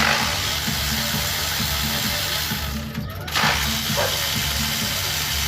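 A loud, steady hiss over background music with a steady beat. The hiss breaks off briefly about three seconds in, then starts again.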